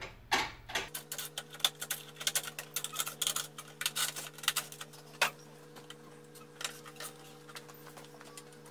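Rapid metallic clicking and clattering as the bolts on the aluminium fence brackets are loosened with a cordless drill-driver, thinning out after about five seconds. A faint steady hum runs underneath.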